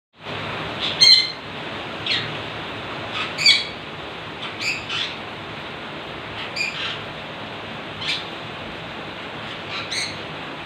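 Pet parrots squawking: about nine short, shrill calls at irregular intervals. The loudest come about a second in and about three and a half seconds in. A steady hiss sits underneath.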